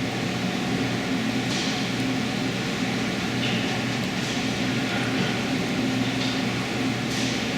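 Steady machine hum, with a few faint, brief scraping sounds.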